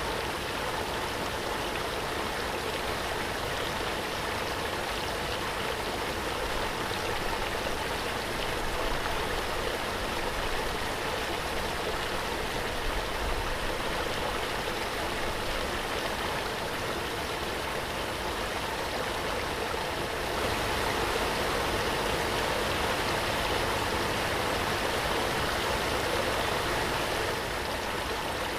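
Waterfall: water falling and rushing in a steady, unbroken roar, swelling a little louder for a few seconds past the middle.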